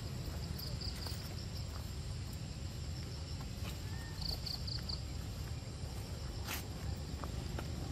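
Forest ambience: a low steady rumble under a faint, steady high insect drone, with two quick runs of about four high chirps, one about half a second in and one about four seconds in. Faint clicks and rustles come from a monkey walking on dry leaf litter.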